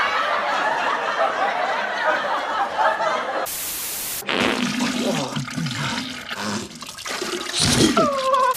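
A short burst of TV static hiss about three and a half seconds in, cutting between snatches of film audio with voices before and after it.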